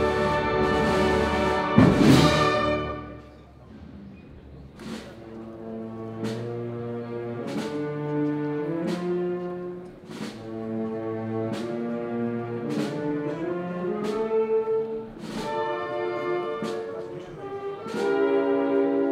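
A band plays a Spanish processional march with sustained brass chords and regular percussion strokes. A loud percussion crash about two seconds in closes a full passage, and the music drops to a much softer, slower-moving passage that swells again near the end.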